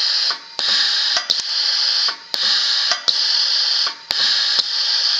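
Pneumatic air cylinder of a .22 LR brass derimming press cycling about once a second, worked by a pushbutton valve switch: each stroke is a burst of hissing compressed air, with a sharp click where the bursts start and stop.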